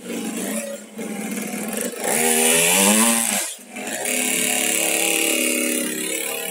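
Small petrol engine of a child's mini dirt bike revving. Its pitch climbs about two seconds in, drops away briefly around three and a half seconds, then holds steady at high revs.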